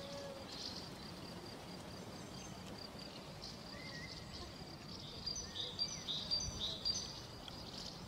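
Outdoor nature ambience: a steady faint hiss under a thin, high, pulsing trill like an insect's, with scattered short bird chirps that come more often about five seconds in.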